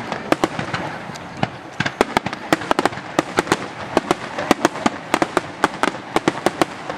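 Fireworks display: a rapid, irregular string of sharp crackling bangs from bursting shells, coming thickest from about two seconds in, over a steady rumbling wash of noise.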